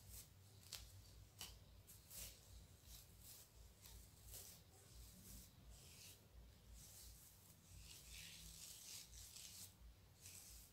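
Faint rubbing of fingers working through wet curly hair coated in styling cream and oil gel, detangling it: irregular soft brushing strokes, turning into longer hissy rubs later on.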